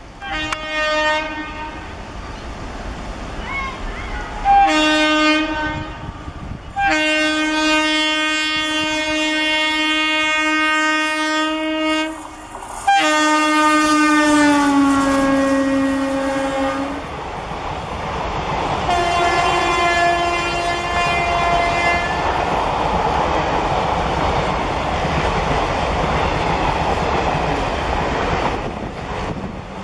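Indian Railways WAP-4 electric locomotive sounding its air horn as it approaches at speed. There are short blasts, then a long blast of about five seconds, then another that drops in pitch as the locomotive passes. After that the express's coaches rush past with steady rolling wheel noise and clickety-clack, with a fainter horn blast partway through.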